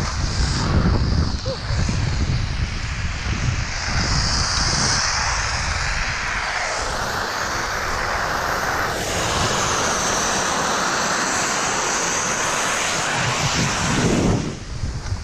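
Steady rush of wind on an action camera's microphone as a skier descends at speed through deep powder, with skis hissing through the snow; it eases off near the end.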